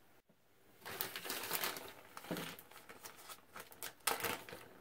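Small plastic zip-lock parts bag crinkling as it is handled, starting about a second in, with irregular faint crackles and a few sharper clicks.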